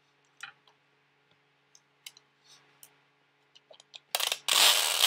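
Plastic protective wrap being peeled off an iPad mini: scattered small crinkles and clicks, then a loud rip for about a second near the end.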